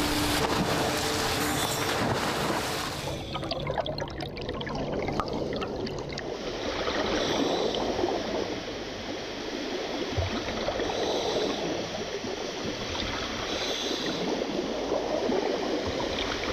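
Water rushing and splashing: a continuous noisy wash, with a steady hum underneath for the first few seconds.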